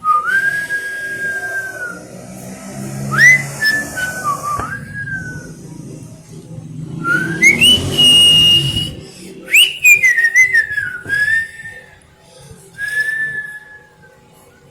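Whistling: a string of separate clear notes, some held steady for a second or two, others sliding up or down. The highest note comes about eight seconds in, followed by a falling slide.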